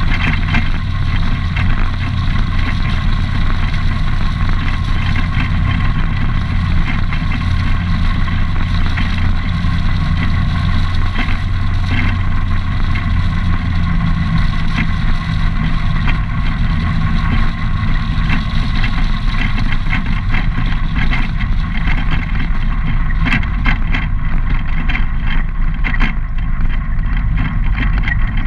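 ATV engine running steadily at cruising speed on a gravel road, with tyre noise and scattered clicks that come more often near the end.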